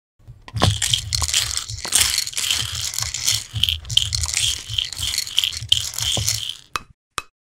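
Continuous crunching and grinding of a silicone spatula mashing and stirring hard sugar sprinkles in a ceramic bowl. It stops shortly before the end and is followed by one short click.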